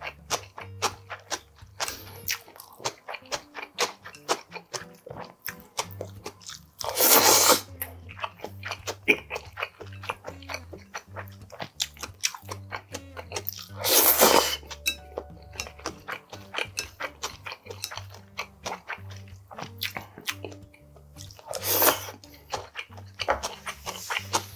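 Close-miked chewing of cold Chinese noodles and their toppings: steady crunching and wet mouth sounds. Three loud slurps come about seven seconds apart.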